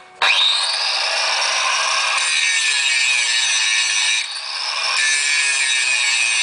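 Makita 9565HZ1 angle grinder switched on about a quarter second in, its whine rising quickly as the disc spins up, then grinding metal with a loud, steady, high hiss and whine. The sound dips briefly about four seconds in and then picks up again.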